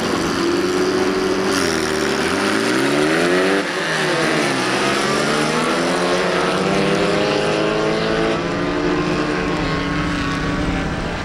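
Several bilcross saloon cars' engines revving hard together as they leave the start and accelerate away, their pitches dipping and climbing over one another as they run up through the gears.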